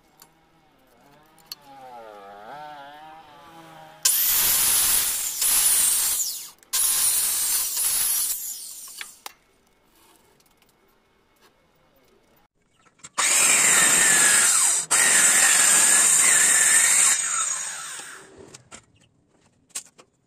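Corded electric power saw cutting into the end grain of a teak beam in two runs, the first a few seconds in with short breaks, the second more steady and then running down.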